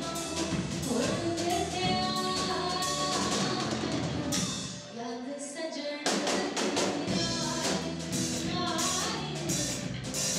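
A song with singing over a steady drum beat. Just before the middle the bass and drums drop out briefly, and the full beat comes back in with strong hits about six seconds in.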